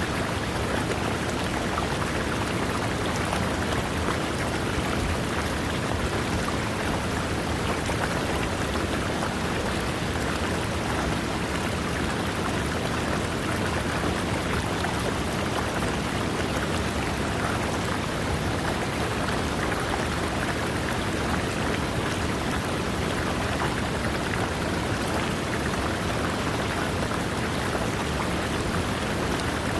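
River water running over rocks, a steady, even rush of splashing water with no let-up.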